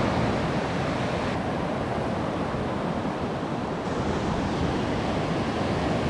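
Steady wash of surf breaking on a beach, with some wind buffeting the microphone.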